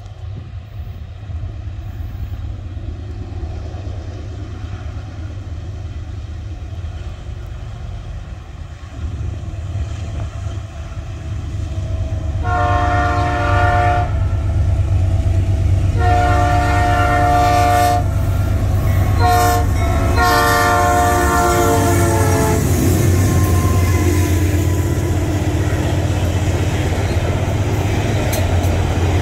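GE Dash 9 diesel locomotives approaching, their engines a low rumble that grows louder. The lead locomotive sounds its multi-tone air horn four times, long, long, short, long: the signal for a level crossing. The locomotives then pass close by, and the freight wagons roll past with a steady rumbling clatter.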